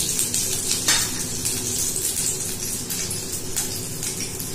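Chopped ginger sizzling in hot oil in a steel kadai: a steady hiss with scattered crackles, the sharpest about a second in, over a low steady hum.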